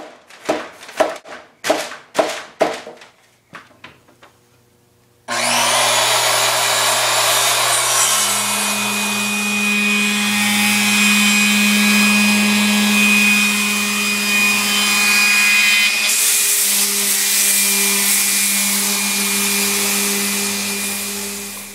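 A run of about eight sharp knocks, then an electric circular saw starts and runs steadily with a constant hum and a high whine. About three quarters of the way through, its high hiss grows louder, and it stops at the very end.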